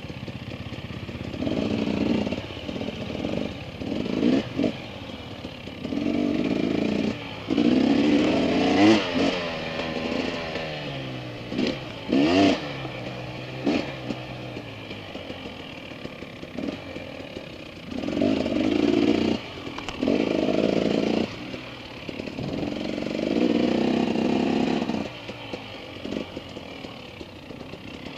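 Dirt bike engine revving in repeated bursts on and off the throttle while riding a trail, its pitch rising and falling with each burst, loudest in the middle.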